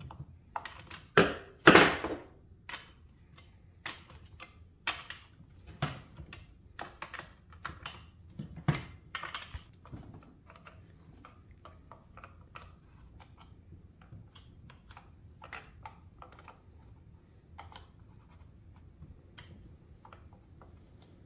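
Irregular metal clicks and clinks of a chainsaw tool and chain as the chain on a Ryobi gas chainsaw is tightened. The clicks are loudest and thickest about a second or two in, then sparser.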